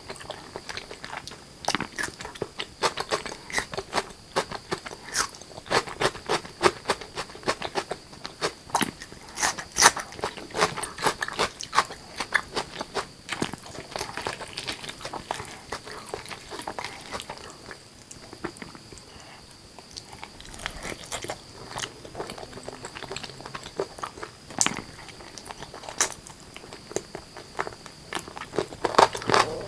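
Close-miked eating of chicken curry with rice: dense, irregular wet chewing and biting clicks, easing off briefly a little past the middle.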